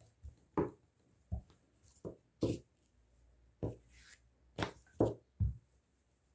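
Rolling pin rolled back and forth over a thin strip of chebakia dough on a table: about eight short thuds and rubs, one with each stroke.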